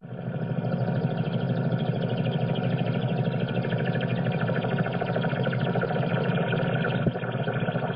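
A 'space sound' drone: a steady, eerie hum of several held tones with a rapid flutter running through it. It starts abruptly.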